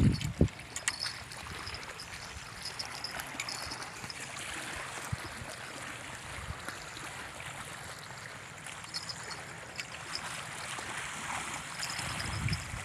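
Steady rushing hiss of flowing water, with a few low thumps at the start and again near the end.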